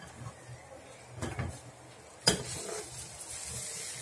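Metal spatula scraping and knocking against a metal kadai as sautéed okra is scooped into a pressure cooker, with one sharp clank a little over two seconds in. A soft sizzle from the hot pan follows the clank.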